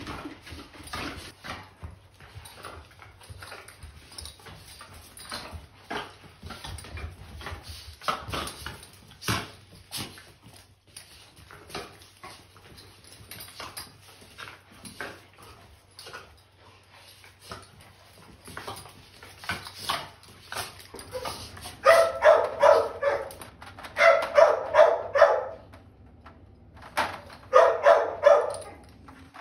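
Young dogs play-fighting on a concrete floor: scuffling with claws clicking and scrabbling throughout. About two-thirds of the way through, high-pitched barking breaks out in quick runs, and it comes again near the end.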